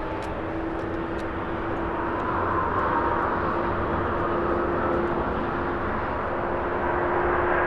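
Airbus A350-900's Rolls-Royce Trent XWB turbofan engines at takeoff power during the takeoff roll: a dense, steady rush of jet noise with a steady humming tone running through it, growing slowly louder.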